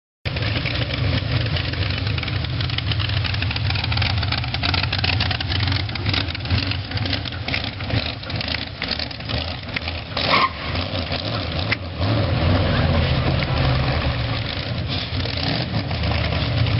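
Hot rod engine running at idle, loud and uneven, with a strong low hum and frequent sharp irregular pops. It cuts in abruptly just after the start.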